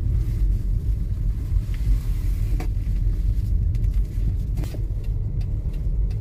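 A car driving along a paved road, heard from inside the cabin as a steady low rumble of engine and tyres.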